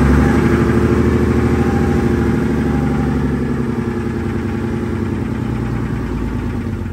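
Unimog 416's diesel engine running steadily at low speed, heard from inside the cab as the truck rolls slowly, easing slightly in loudness over the last few seconds.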